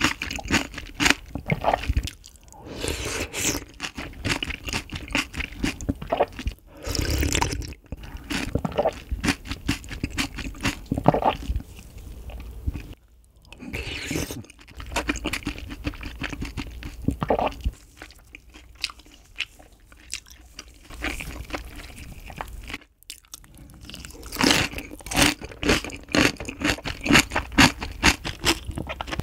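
Close-miked chewing: the wet crunch of freshly made napa cabbage kimchi along with mouthfuls of rice soaked in ice water, in irregular bursts with a few short pauses.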